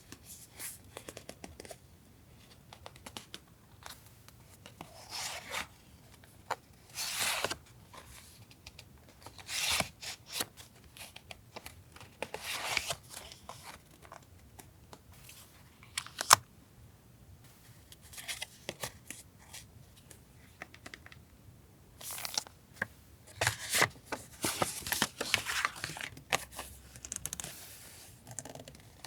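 Paper goods and packaging being handled: intermittent rustling, crinkling and tearing of paper in short bursts, with light taps and one sharp click about sixteen seconds in.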